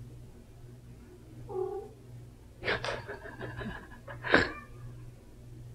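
A house cat calls briefly about a second and a half in, then makes louder, harsh, broken cries. These end in one sharp, loud sound.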